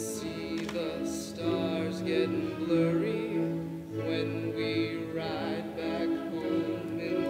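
A song from a stage musical: a male voice singing held, wavering notes over orchestral accompaniment.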